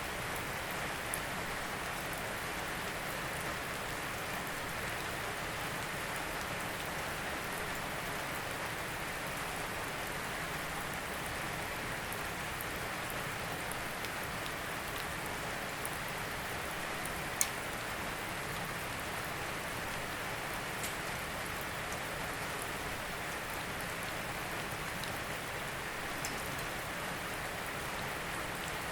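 Steady rain falling, an even hiss with scattered sharper drop ticks, the clearest about seventeen seconds in.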